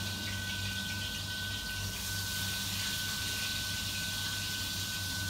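Steady hum and hiss of commercial kitchen equipment, with a constant high-pitched whine over it.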